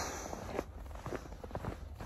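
Footsteps of a person walking.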